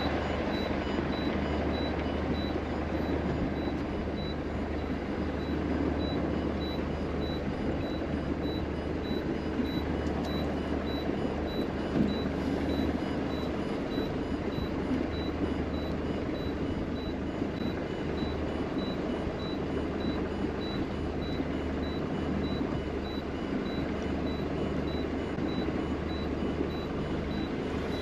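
Boat engine running steadily at a constant speed, with a faint high beep repeating about twice a second.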